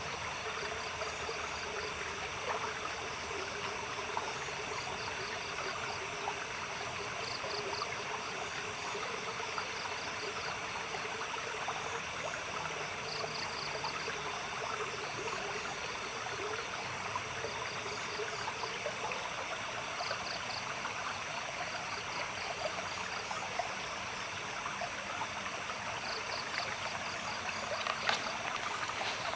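A stream trickling steadily, with a night chorus of animals: a steady high drone and short runs of rapid chirps repeating every few seconds. The water grows a little louder near the end.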